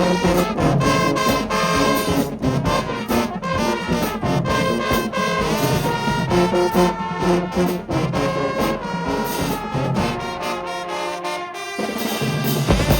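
High school band playing, brass over drums. About ten seconds in the drums and low brass drop away, leaving the higher horns, and the full band comes back in near the end.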